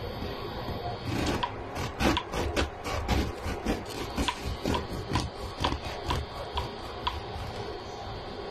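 Bread knife sawing through the crust of a home-baked loaf on a wooden cutting board: quick repeated rasping strokes with crackling crust, about two or three a second. They start about a second in and stop shortly before the end.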